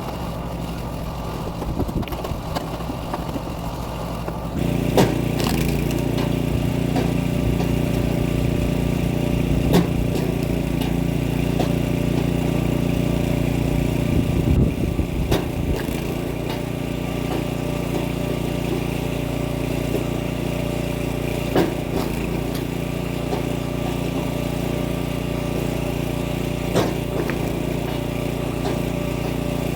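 Small gasoline engine of a kinetic log splitter running steadily, its note getting louder about four and a half seconds in. A sharp crack or knock comes every few seconds at uneven intervals as logs are split.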